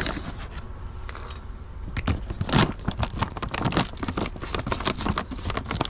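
Rummaging through food packets and containers: plastic crinkling with a run of sharp clicks and taps, sparse at first and busier from about two seconds in.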